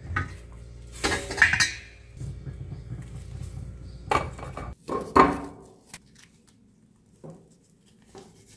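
Stainless steel lid of a Tatung electric cooker clattering as it is lifted off, over a low steady hum, with a second burst of clattering about four seconds in as the steamed zongzi is set down on a plate. After that there are only faint rustles as the zongzi's leaves are peeled.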